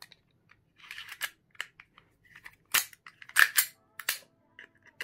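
Series of sharp plastic-and-metal clicks and clacks from a gas-blowback airsoft Glock pistol being handled and reassembled, its slide fitted back onto the frame by hand. The loudest clacks come about three seconds in.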